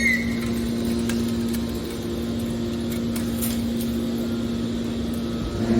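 Hydraulic metal baler's power unit running with a steady, even hum at one constant low pitch, with a few faint clicks.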